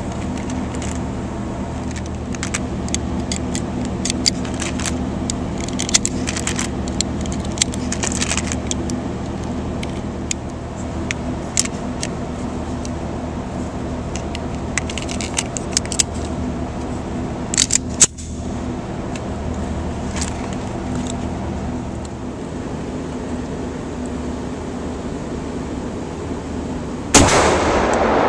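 Small metallic clicks and clinks of cartridges being pressed into a stainless pistol magazine, over a steady low hum. Near the end a sudden loud bang, after which the sound stays much louder.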